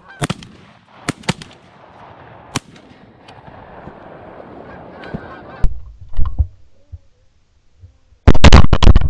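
Canada geese honking as a flock flies over, with some sharp knocks along the way. About eight seconds in comes a very loud, distorted shotgun blast.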